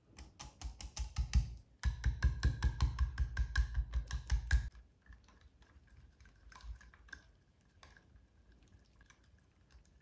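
Wire whisk beating a thick walnut sauce in a glass bowl, its wires clicking and knocking rapidly against the glass, with a short pause near two seconds in. After about five seconds the strokes turn slower and quieter.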